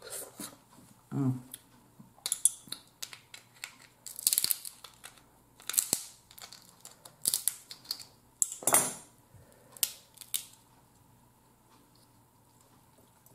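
Blue crab shell cracking and crunching as it is broken apart by hand: a string of short, sharp crackles and clicks over about ten seconds, with a few close-miked mouth sounds from eating.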